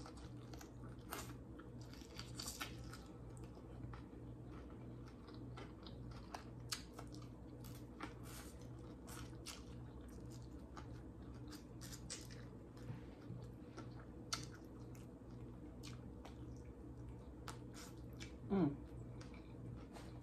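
Person chewing and biting fried chicken: scattered short crunches and wet mouth clicks over a steady low electrical hum. A brief sound of her voice comes near the end and is the loudest moment.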